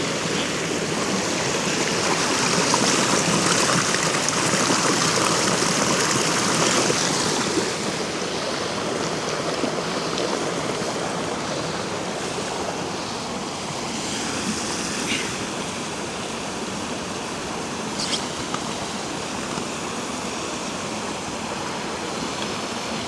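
Small mountain stream babbling close by, with water rushing louder for the first several seconds as a container is held in the flow to fill, then a steadier, slightly quieter flow. There are a couple of light knocks later on.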